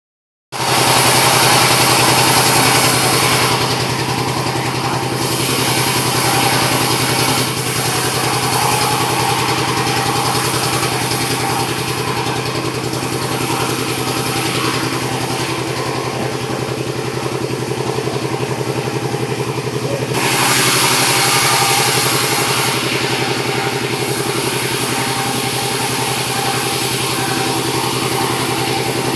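Sawmill machinery running, sawing red sengon logs into beams: a steady engine drone under a harsher cutting noise that swells near the start and again about two-thirds of the way through.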